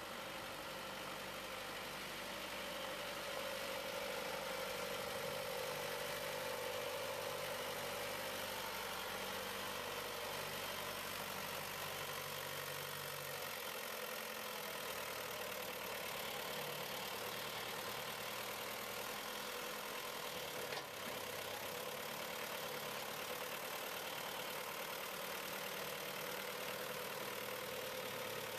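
John Deere 2650 tractor's four-cylinder diesel engine running steadily as the tractor moves and lifts a front-loader grab of logs.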